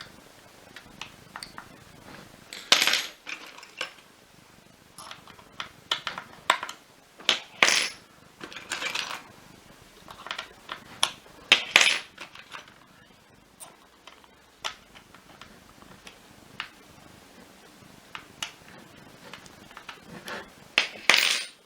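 Hard tools and small parts clinking and clattering as they are handled, in irregular clicks and short bursts with a few louder clatters.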